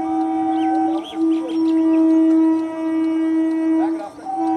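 Electric multiple unit (EMU) local train's air horn sounding long, steady blasts on one pitch as the train approaches a level crossing, broken briefly about a second in and again near the end. Faint bird chirps can be heard behind it.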